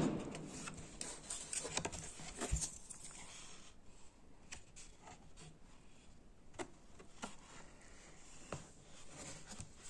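Faint handling noises: scattered soft clicks and light scraping from a cardboard pastry box and a wooden spoon cutting into a chocolate pastry, with one soft knock about two and a half seconds in.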